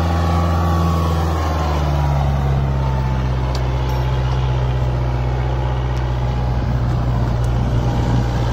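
Kubota MU4501 tractor's four-cylinder diesel engine running steadily under heavy pulling load as it drags a disc harrow with its front wheels lifted. The engine note drops slightly about one and a half seconds in as it labours.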